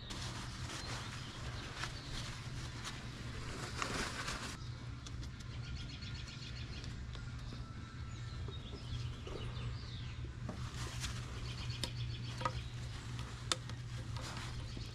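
Faint bird chirps over a steady low hum, with a few light clicks of handling.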